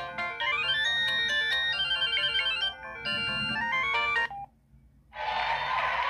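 Samsung SGH-E700 flip phone's built-in polyphonic ringtones previewing from the default melodies menu. A synthesized melody cuts off about four seconds in. After a gap of under a second, the next ringtone starts with a denser, fuller sound.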